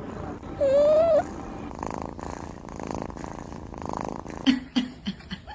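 A kitten gives one short mew, then purrs steadily for a couple of seconds; a few sharp clicks come near the end.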